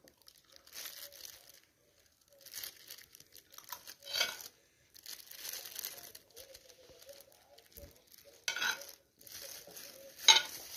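Metal spoon scraping and spreading chopped meat across a thin sheet of rolled dough on a wooden board, in short intermittent strokes with a few sharper taps, the loudest near the end.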